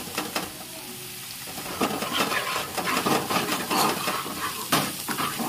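Onion-garlic masala frying in oil and ghee in a pan, sizzling while a spoon stirs it with sharp scraping clicks against the pan. The sizzle gets louder and denser about two seconds in.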